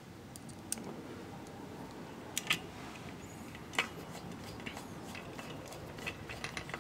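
Scattered small clicks and taps of a screwdriver fitting into and turning a heatsink screw on the back of a graphics card. The loudest are a pair a little over two seconds in and one near four seconds, with a run of lighter ticks near the end.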